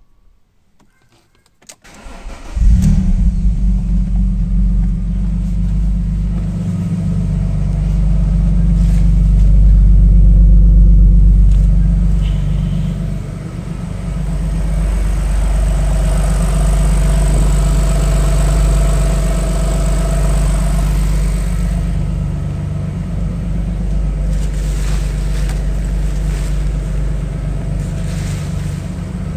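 Alfa Romeo GT 3.2's Busso V6 cold-started after standing ten months: the starter cranks briefly about two seconds in, the engine catches loudly, then idles steadily. Its loudness swells and eases a little over the following seconds.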